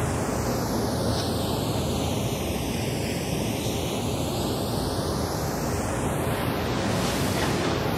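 Steady rushing hiss with a slow, swooshing sweep in its tone that falls and then rises again.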